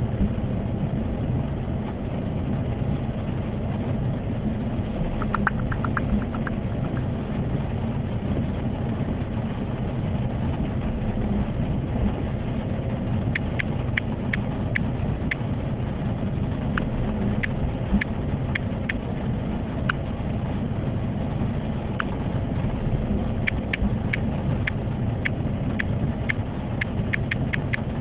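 Steady low road and engine rumble inside a moving car's cabin. Scattered light ticks of raindrops hit the windscreen, a short cluster about five seconds in and more often in the second half.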